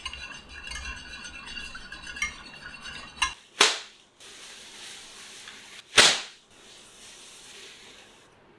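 A fork beating eggs and milk in a glass baking dish, with quick rapid clinks of metal against glass for about three seconds. Then a plastic tablecloth is flapped out twice over the counter: two loud whooshing snaps about two and a half seconds apart, each followed by plastic rustling as it settles.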